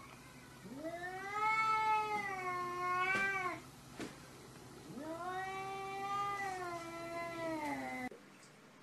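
Domestic cat yowling at a rival cat in a territorial standoff: two long, drawn-out caterwauls, each rising and then falling in pitch, with a short pause between them.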